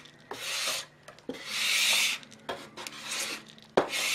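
Several uneven scraping strokes as leftover Roma Plastilina oil-based clay is scraped up off the work surface, with a sharp knock a little before the end.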